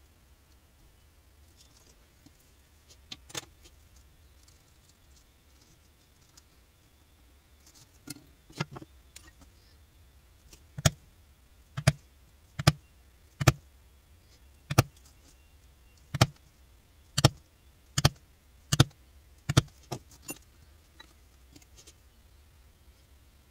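Mallet striking a leather punching tool through leather on a rubber work mat: a few light taps first, then from about eleven seconds in about ten sharp knocks, roughly one a second.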